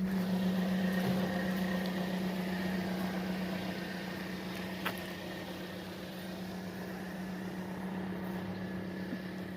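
A vehicle's engine running steadily with an even hum, slowly fading over several seconds. There is a faint click about five seconds in.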